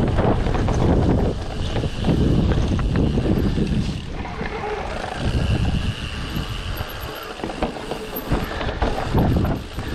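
Wind buffeting the camera microphone during a mountain-bike ride, over knocking and rattling from the bike on rough ground. It is heaviest in the first four seconds, then eases.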